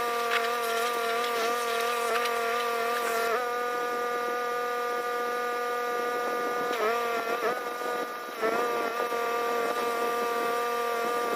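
Pressure-washing equipment running with a steady whining hum and a light spray hiss; its pitch sags briefly a few times in the second half, as with a change of load.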